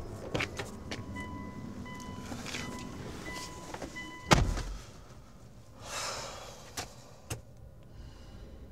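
Car door sounds: clicks as someone climbs into the car, a steady warning tone, then the door slams shut about four seconds in. A rustle and two small clicks follow as they settle in the seat.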